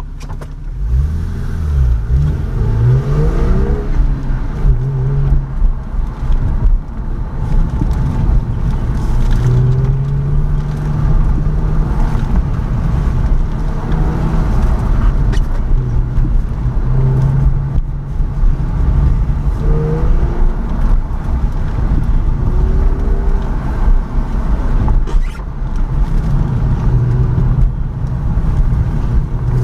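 Car engine accelerating hard on an autocross run. It launches about a second in with a steeply rising pitch, then the revs rise and fall over and over as the car speeds up and slows between turns.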